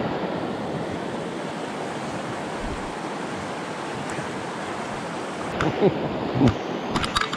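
Fast mountain creek running over rocks: a steady rush of water, with a few short clicks and knocks in the last two seconds.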